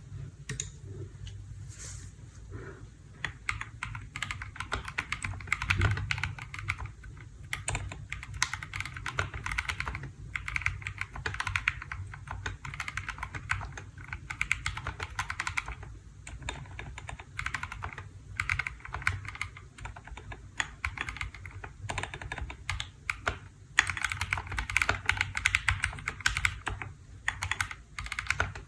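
Typing on a KBDfans D65 65% mechanical keyboard: a fast, steady stream of keystrokes with a few brief pauses.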